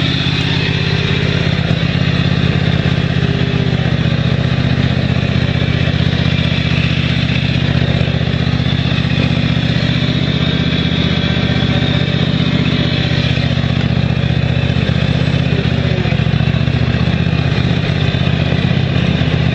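Craftsman DYT 4000 riding mower's engine running steadily at an even speed.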